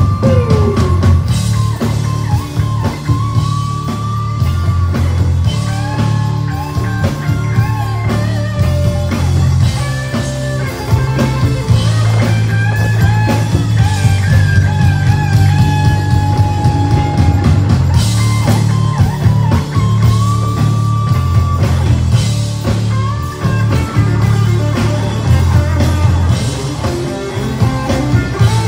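Live rock band playing a soft-rock cover: a sustained lead melody with bends and slides over a heavy bass line and drums.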